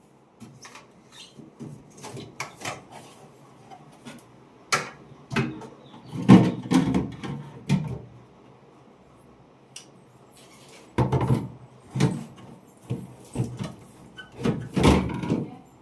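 Irregular knocks, clunks and scraping of a refrigerator and its packing being handled during unpacking, in two bursts with a quieter pause between.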